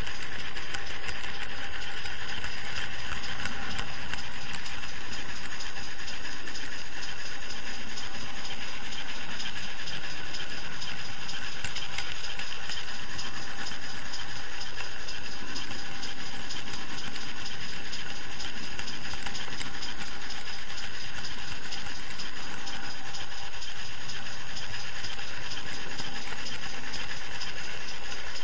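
Model train running steadily along the track, heard from a camera wagon riding on it: a constant rattle of small wheels on the rails with a steady whine, from the wagon being pushed by a model Pannier tank locomotive.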